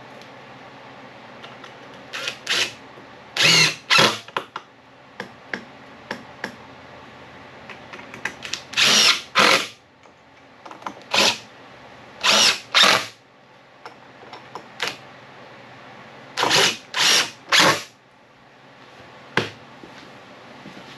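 Cordless drill running in about a dozen short bursts into the wooden workbench top, in groups of two or three, each under a second long.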